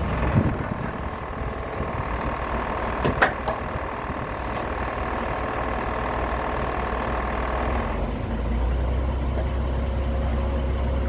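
A heavy truck's engine idling steadily, with a sharp click about three seconds in; the low rumble grows deeper and stronger about eight seconds in.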